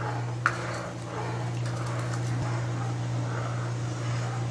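Plastic spoon stirring sugar into hot water in a wok to dissolve it: a soft swishing of liquid with one light tap of the spoon about half a second in, over a steady low hum.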